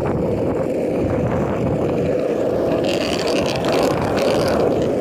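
Longboard wheels rolling fast over street pavement: a loud, steady rumble, which the rider jokingly likens to an exhaust. A brief hiss joins it about three seconds in.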